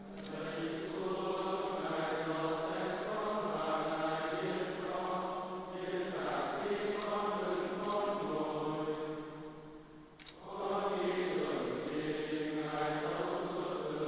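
Men's voices chanting a Vietnamese psalm in unison, the Liturgy of the Hours recited to a simple chant tone, with a short pause near ten seconds in before the next verse starts.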